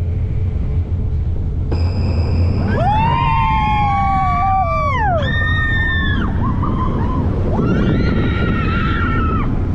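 Riders screaming on a moving Intamin launched roller coaster: several long screams sliding up and down in pitch, the last one near the end, over a steady low rush of wind and train noise on the microphone.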